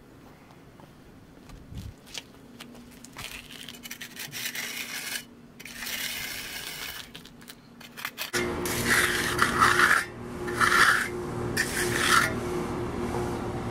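Hand finishing tool scraping across the wet surface of freshly poured concrete in separate strokes, soft at first and louder from about eight seconds in.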